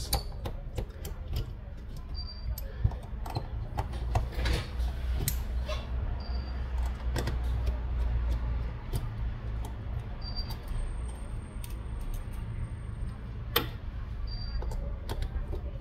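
Small scattered clicks and taps of a screwdriver backing tiny screws out of a Samsung Galaxy A13's plastic midframe, and of the screws being set down on the work mat. One sharper click comes near the end, over a steady low hum.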